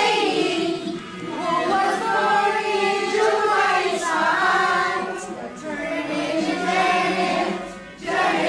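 A group of people singing a song together in unison, with short breaks between phrases. The words are a personalised birthday tribute telling the life story of the woman being celebrated.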